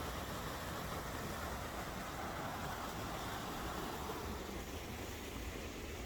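Stream water rushing steadily over a small cascade, easing off a little near the end.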